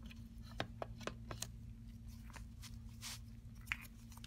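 Faint handling noises: a scatter of light clicks and rustles, with a brief hiss about three seconds in, over a steady low hum.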